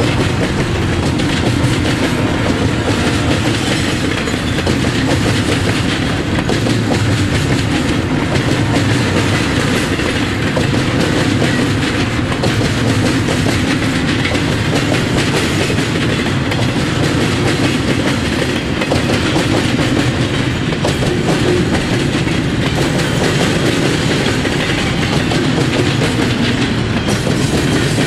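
Double-stack intermodal well cars of a freight train rolling past, loud and steady, their wheels clattering and pounding as they cross the railroad diamond in a dense, unbroken stream of knocks.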